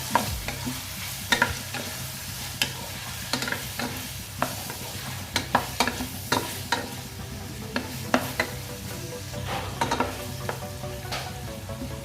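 Onion and tomato sautéing in oil in a pan, sizzling steadily, while a spatula stirs and knocks against the pan in irregular sharp clicks.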